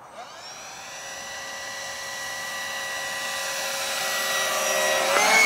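Electric ducted fans of a radio-controlled XB-70 Valkyrie model whining steadily and getting steadily louder; near the end the pitch drops.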